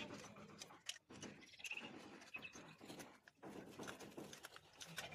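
Near silence, with faint light clicks and taps of a spanner tightening the nuts that join a borewell submersible motor to its pump, and one brief faint chirp about a second and a half in.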